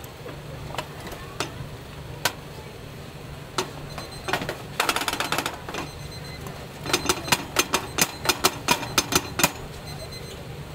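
Sharp clacking taps. A few single taps come first, then a quick flurry about halfway in, then a steady run of about four to five taps a second near the end, over a low steady hum.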